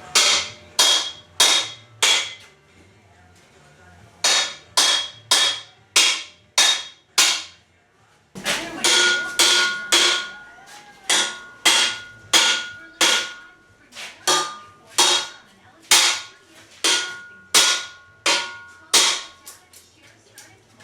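Big hammer striking a welded steel assembly again and again, about two blows a second, each blow ringing like struck metal, with two short pauses between runs of strikes. The pounding forces an out-of-square weldment into line.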